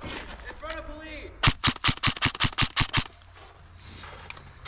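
Airsoft gun firing a rapid string of about a dozen sharp shots over about a second and a half, loud and close.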